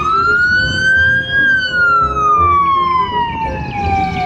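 Ambulance siren in a slow wail: the pitch rises for about a second and a half, then falls slowly through the rest, over the low rumble of the vehicle.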